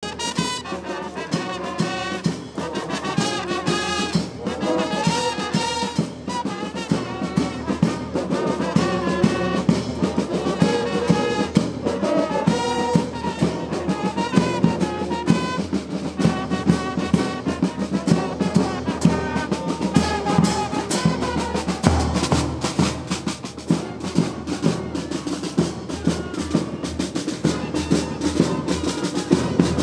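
A marching band's brass section (trumpets, baritone horns and sousaphones) playing a march tune, with drums keeping a steady beat.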